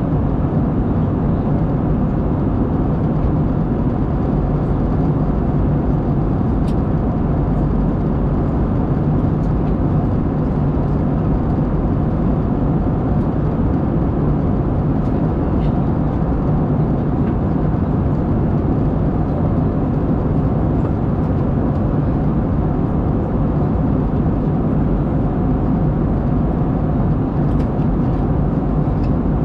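Steady in-flight cabin noise of an Airbus A220 heard from a window seat by the wing. It is the drone of its Pratt & Whitney PW1500G geared turbofan engines and the airflow, a dense low noise with a few faint steady tones above it.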